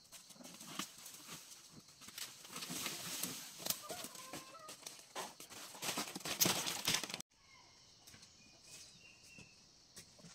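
Leaves and branches rustling and snapping in a dense run of crackles, building from about two seconds in and cutting off abruptly about seven seconds in. After that it is quieter, with a few short bird calls, likely chickens.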